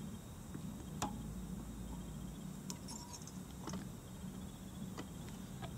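Faint scattered clicks and ticks from fingers and tying thread being worked at the hook in a fly-tying vise while the fly is tied off, over a steady low hum.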